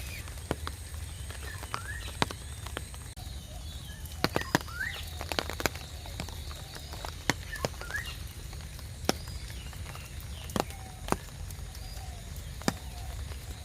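Large raindrops dripping and landing in irregular single taps, over a low steady rumble, with short rising bird chirps now and then.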